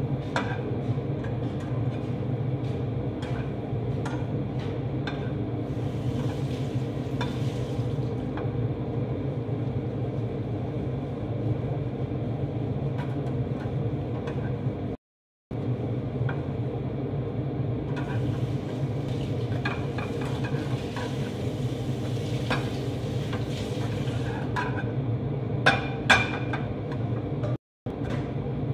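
A slotted metal turner scraping and tapping against a non-stick frying pan as pancakes are turned and pressed, with a couple of sharper clinks near the end. A steady low hum runs underneath.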